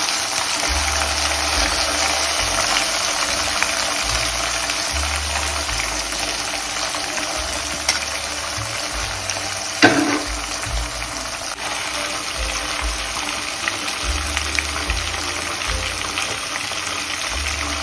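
Spiced chicken pieces deep-frying in hot oil in a kadai: a steady sizzle with fine crackling, stirred now and then with a steel spoon, with one sharp knock about ten seconds in.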